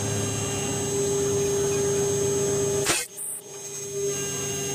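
Mini CNC router spindle running steadily with a high whine as its engraving bit cuts letters into a copper-alloy disc. About three seconds in there is a sharp click, and the sound nearly cuts out for about a second before the running resumes.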